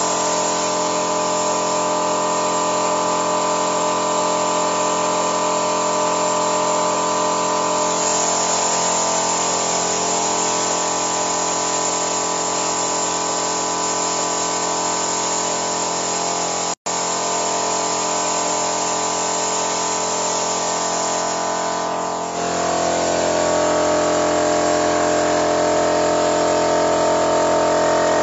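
Steady machine running noise with a constant whine, from the engine-cleaning work in an open car engine bay. It cuts out for a split second about 17 s in. About 22 s in it shifts to a louder, slightly different tone.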